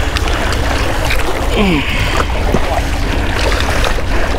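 Wind rumbling on the microphone, with small waves washing and splashing against the jetty rocks; the water noise swells about a second and a half in.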